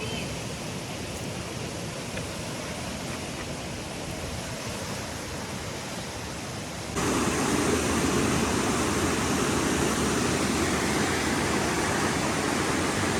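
Steady rushing water, such as a stream or small waterfall, with a sudden step up in loudness about seven seconds in.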